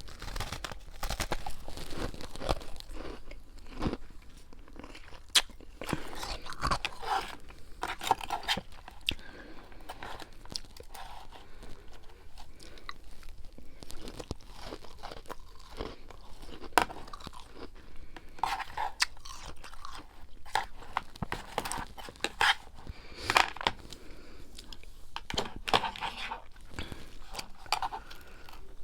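A person crunching and chewing freezer frost, with many irregular sharp crunches and softer chewing between them.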